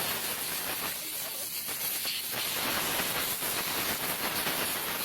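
A steady hiss, even in level throughout.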